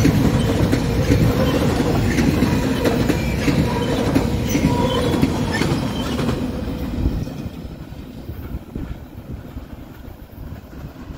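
Train cars rolling past on the rails with wheel clicking and a steady wheel squeal. About two-thirds of the way through the sound drops away sharply as the end of the train goes by, leaving a fainter rumble.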